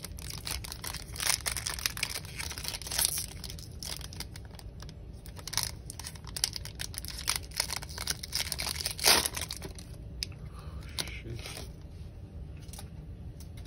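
A foil trading-card pack (Panini Prizm basketball) torn open by hand, its wrapper crackling and crinkling in a long run of sharp rustles, loudest about nine seconds in. After that come quieter, sparser rustles as the cards are handled.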